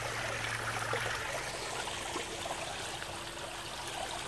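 Shallow creek water running and trickling over rocks into a pool, a steady rush.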